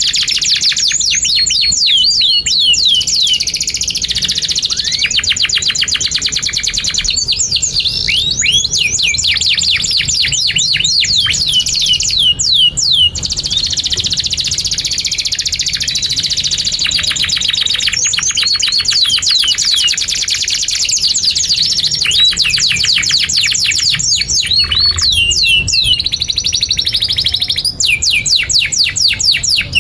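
Domestic canary singing a long, unbroken song. It moves through fast rattling trills of rapidly repeated notes and runs of quick downward-sweeping chirps, changing phrase every few seconds.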